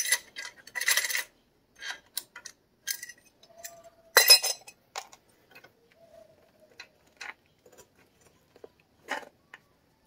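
Metal tools and parts clinking and clicking against a mini bike's engine as it is worked on by hand, with a louder metallic clatter about four seconds in and two brief squeaks.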